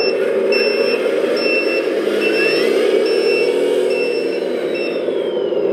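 RC dump truck's onboard sound module playing a steady diesel engine sound with a reversing beeper, about one beep a second, which stops about five seconds in. A whine rises about two seconds in, holds, then slowly falls away.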